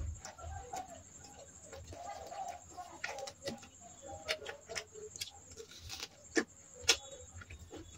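Pigeons cooing in the background, with scattered light clicks and taps and two sharper clicks late on.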